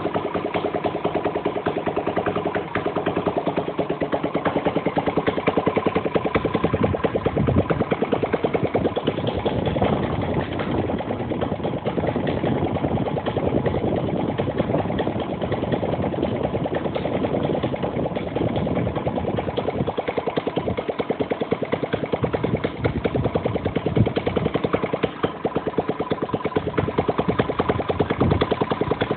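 Stihl 64 cc engine from a BR600 backpack blower, converted for a model aircraft, running and swinging a Menz 26x8 propeller, with a rapid, even firing beat throughout.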